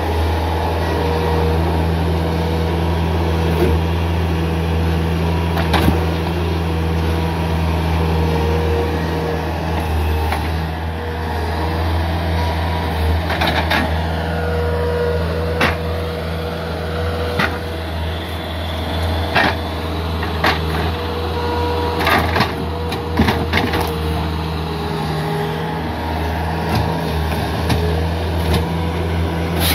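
Bobcat S300 skid steer's diesel engine running steadily with a constant whine over it, and scattered sharp knocks and clunks as the grapple grips and moves logs.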